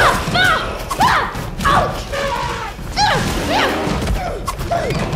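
Scuffle of a karate fight: short shouted cries follow one another every half second or so, rising and falling in pitch, over thuds of blows and bodies.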